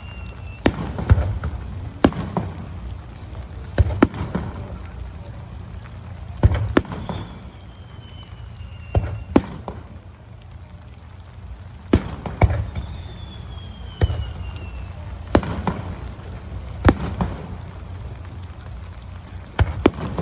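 Fireworks shells bursting overhead: sharp booms every second or two, some in quick pairs, over a steady hiss of rain. Three times a thin whistle falls slowly in pitch for a couple of seconds.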